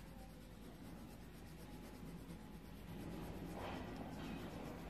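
Coloured pencil scratching back and forth on a paper card while colouring in, faint at first and louder from a little past halfway.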